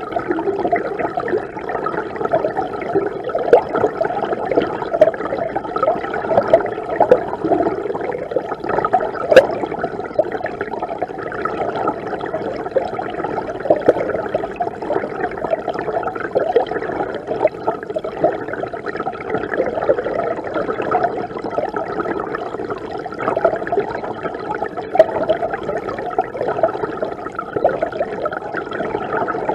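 Mountain river water flowing, a steady rushing and bubbling with many small splashes.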